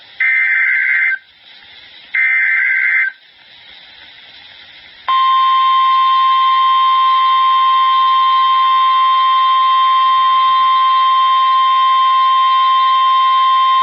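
Emergency Alert System SAME data bursts, harsh two-pitch digital screeches about a second long, sounding twice in the first three seconds; then, about five seconds in, the NOAA Weather Radio warning alarm tone starts, one loud steady pitch held for about nine seconds. Together they open a new tornado warning broadcast.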